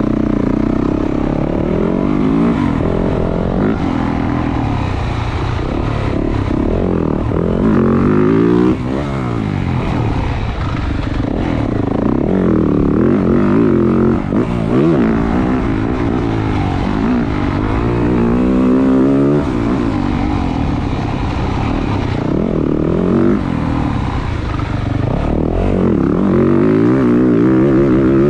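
2023 Yamaha YZ450F's single-cylinder four-stroke engine being ridden hard, its pitch rising and falling over and over as the rider works the throttle and shifts.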